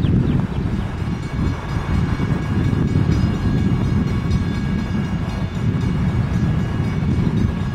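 Long Island Rail Road diesel locomotive approaching with its train, a steady low rumble mixed with wind buffeting the microphone.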